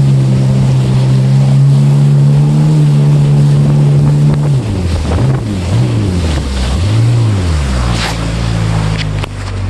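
Jet ski engine running at a steady pitch under way with water spray and wind rushing past. About halfway through the engine note drops and swings up and down a few times before settling lower, with a few sharp splashes near the end.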